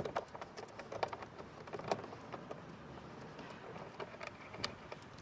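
Light, irregular clicks and taps of a T20 Torx bit and driver working a screw out of a car door panel. They are thicker in the first couple of seconds and sparser after.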